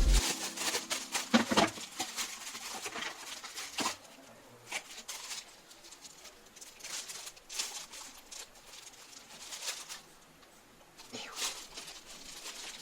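Scattered light clicks and rustles of a socket and wrench tool set being handled, busiest in the first two seconds and again near the end.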